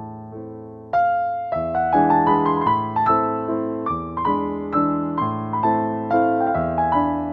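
Background music: a gentle piano piece of struck notes that ring and fade, soft at first and louder from about a second in.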